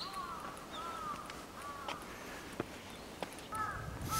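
Crows cawing: a run of short, arched calls repeating every half second or so. A few light ticks sound in between.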